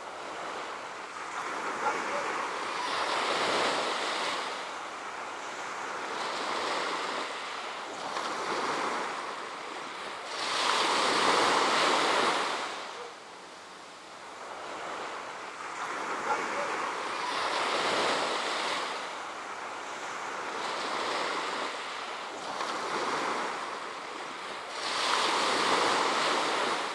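Sea waves washing onto a beach, the surf swelling and falling back every few seconds, loudest a little before the middle and near the end.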